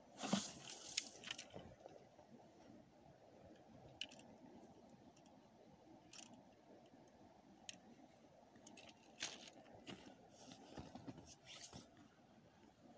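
Ice and snow crunching and scraping as a hand ice auger is worked in a freshly drilled hole and the slush is cleared out: a loud burst of crunching in the first second and a half, then scattered faint crunches and scrapes.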